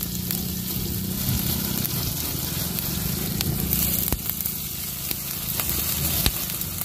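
Fern shoots (pakis) sizzling in hot oil in a black wok over a wood fire, with a few sharp pops scattered through the sizzle.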